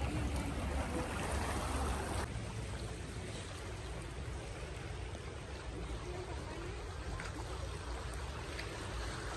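Steady waterside wash of lapping water with a low rumble, dropping a little in level about two seconds in.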